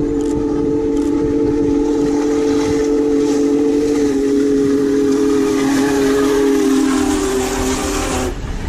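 Diesel locomotive's multi-chime air horn sounding one long blast of several notes at once. Its pitch drops slightly partway through and again near the end as the train passes, and it cuts off sharply just before the end.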